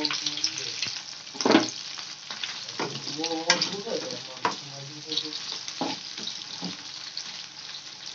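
Boiled potato pieces sizzling and crackling as they shallow-fry in hot oil in a kadhai, being browned. A few louder sharp sounds stand out above the steady sizzle.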